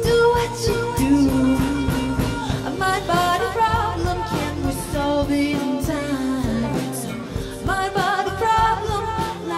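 A song: a singer's melodic vocal line, sliding between notes, over instrumental backing with a steady beat.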